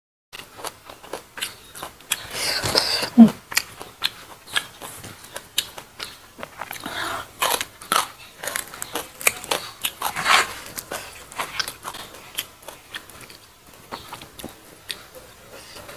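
A person chewing and crunching food close to a clip-on microphone, with many irregular wet mouth clicks; it grows louder around two to three seconds in and again around ten seconds in.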